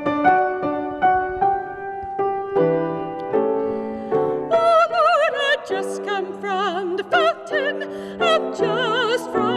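Grand piano playing a slow passage alone; about four and a half seconds in, a soprano voice joins over it, singing with a wide vibrato.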